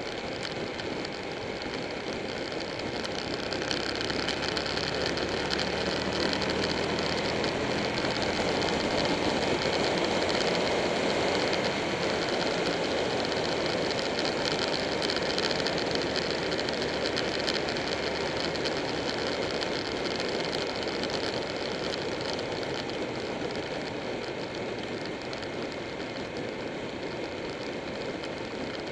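Buell 1125R motorcycle riding at road speed: its V-twin engine running steadily under a heavy rush of wind and road noise. It grows louder a few seconds in, then eases off in the second half.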